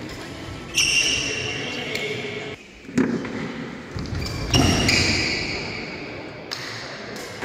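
Badminton doubles rally: sneakers squeal on the court floor in two long stretches, and rackets strike the shuttlecock with sharp knocks in between.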